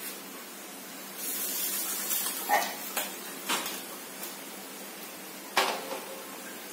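A brief hiss, then about five sharp clinks and knocks of metal cookware handled on a gas stove, the last one near the end as loud as the first.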